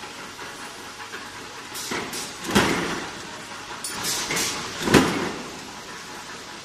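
A metal press in a tube-bending workshop cycling twice, each stroke a brief build-up ending in a loud clunk, about two and a half seconds apart, over steady workshop noise.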